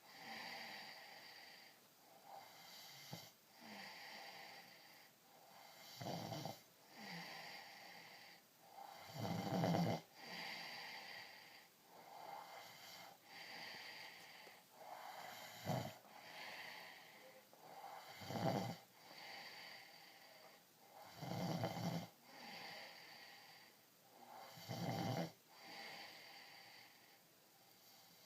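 A two-year-old child snoring in his sleep. A regular run of snores, the loudest coming every three seconds or so, with softer breaths in between.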